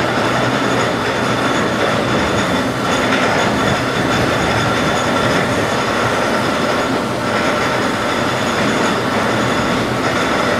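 Machinery of a rolling bascule bridge leaf as it lowers: a loud, steady grinding rumble of the rollers and gearing as the counterweighted leaf rolls down, with a constant high whine running through it.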